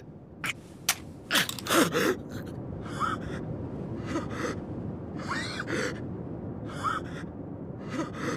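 A man's frightened, ragged gasping: two sharp clicks in the first second, a strained cry about a second and a half in, then short panting gasps about once a second, each with a small rising whimper.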